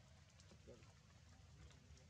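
Near silence: faint outdoor background with a few soft clicks and a brief faint call-like tone.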